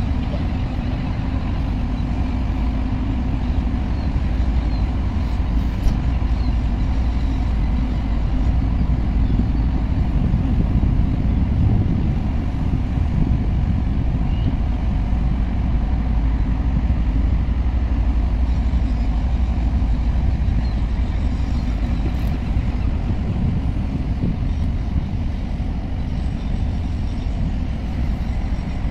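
Steady low rumble of ship and shipyard machinery, with a faint hum.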